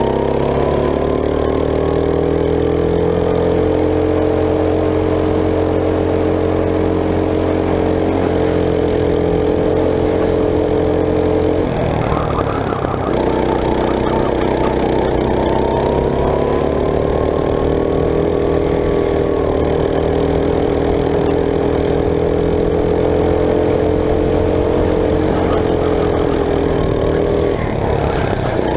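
Go-kart engine heard from onboard, running at high revs. Its pitch climbs slowly along a straight, dips briefly about twelve seconds in as the kart slows for a corner, then climbs again and dips once more near the end.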